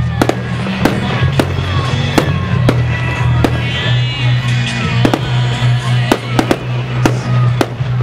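Fireworks going off in a display: sharp bangs and cracks about twice a second, over loud music with a heavy bass.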